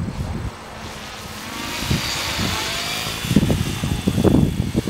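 Align T-Rex 600N radio-controlled helicopter with a two-stroke nitro glow engine and spinning rotors, growing louder as it descends close overhead, with a faint sliding engine tone. Low gusty buffeting comes in over the last second or two.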